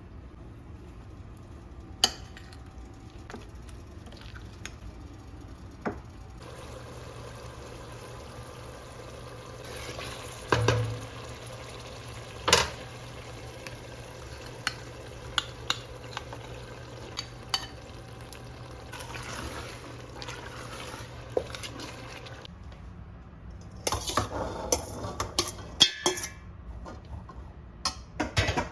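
Kitchen utensils clinking and knocking against pots and dishes, with a steady hiss through the middle and a busier run of clatter near the end.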